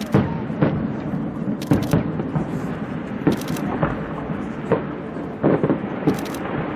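Fireworks exploding overhead: a string of sharp bangs at uneven intervals, about ten in all, some in quick pairs, over a steady rumble.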